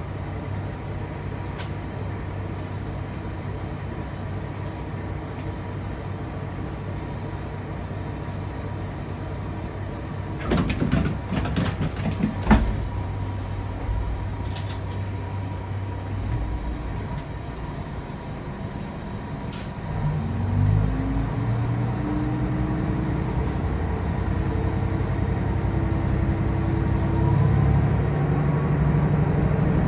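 Tosa Kuroshio Railway 8000 series diesel railcar engine idling steadily, with a brief clatter of knocks about a third of the way in. About two-thirds of the way in the engine note rises and grows louder as the railcar pulls away.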